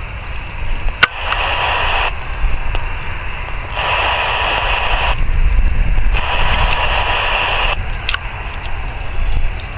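Handheld airband scanner radio breaking squelch three times, each a burst of static hiss about one to one and a half seconds long, the first starting with a sharp click. A steady low rumble runs underneath.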